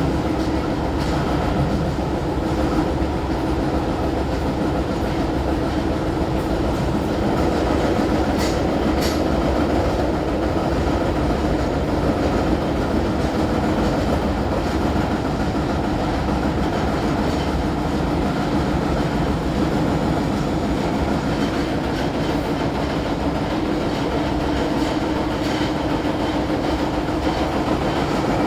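Osaka Metro 30000A series subway train running along the line: a steady rumble of wheels on rail under a constant hum, with a couple of faint clicks about eight seconds in.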